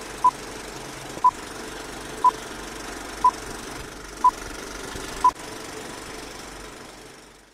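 Old-film countdown leader sound effect: six short high beeps, one each second, over a steady film-projector rattle and hiss that fades out near the end.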